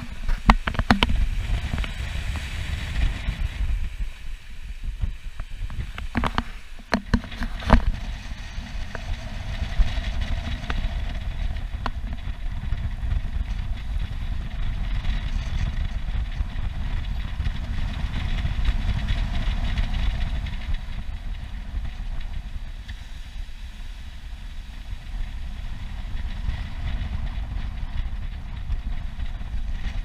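Wind buffeting the deck-mounted microphone of a sailing catamaran, over the rush of water along its hulls as it sails through the waves. A few sharp knocks come in the first eight seconds or so.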